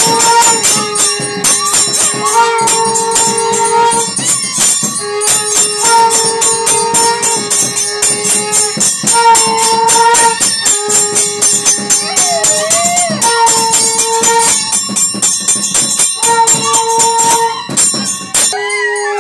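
Temple puja music: fast, even jingling of bells and percussion under a held two-note tone that repeats every couple of seconds. Near the end the jingling stops and a dog's howl begins.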